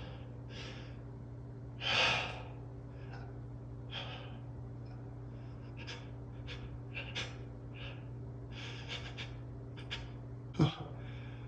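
A man's gasping, hitching breaths as he fights back a sneeze. There is a long breathy gasp about two seconds in, a smaller one a couple of seconds later, short quick sniffs through the middle, and a sharp voiced catch of breath near the end.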